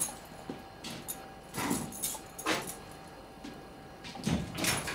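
Footsteps and shoe scuffs on a hard floor: a few separate scraping steps, the last ones near the end, over a faint steady hum.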